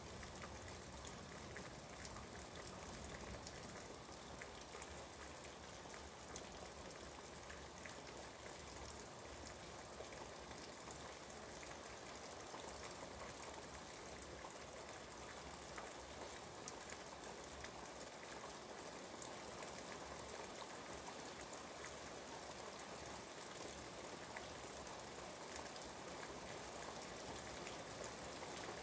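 Steady, heavy rain falling outside, heard through an open window, an even hiss with scattered drop ticks.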